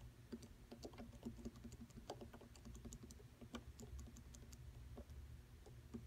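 Faint, quick clicking of the keypad buttons on a Control Techniques Unidrive M700 drive, pressed over and over to step a parameter value up.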